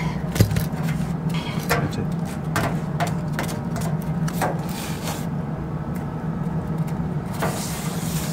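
Short scraping and rubbing strokes on torch-down roofing membrane, about one a second, over a steady low hum.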